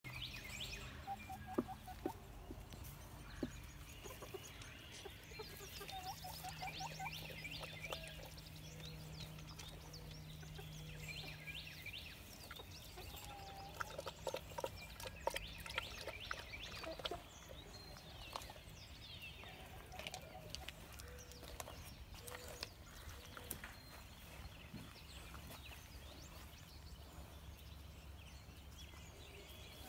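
Chickens clucking softly off and on, with scattered faint clicks and rustles.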